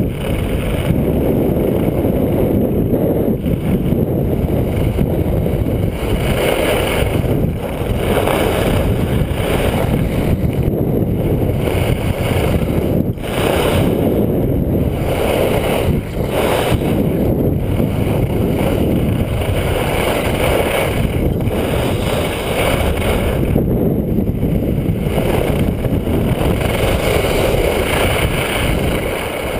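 Wind buffeting the microphone of a camera carried by a skier moving fast downhill, a loud steady rush, with the skis hissing on groomed snow and swelling and fading every few seconds through the turns.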